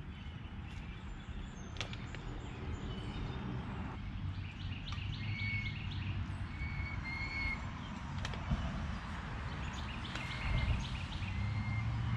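Songbirds chirping in short repeated phrases, twice, over a low steady rush, with a few faint clicks.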